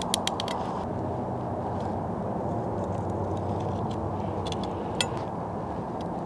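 A fillet knife cutting along a striped bass's backbone on a cutting board, with a few sharp clicks and taps of the blade, over a steady low background rumble.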